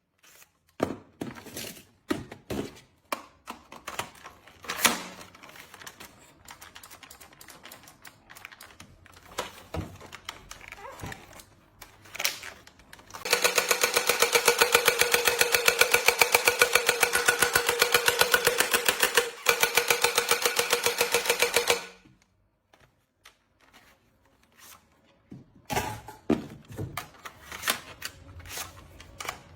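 Toy pistol clicking and rattling as it is handled. About 13 seconds in comes a rapid, even, buzzing rattle that lasts about eight seconds and stops suddenly, then more scattered clicks near the end.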